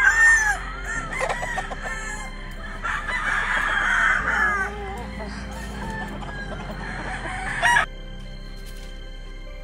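Game roosters crowing, with crows overlapping: one right at the start and a strong, longer crow about three to four and a half seconds in. The sound drops off abruptly about eight seconds in and stays much quieter.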